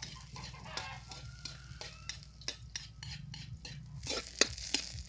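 Metal spatula stirring and scraping in a wok while garlic, onion and ginger sizzle in hot oil, with a quick run of sharp clinks against the pan near the end.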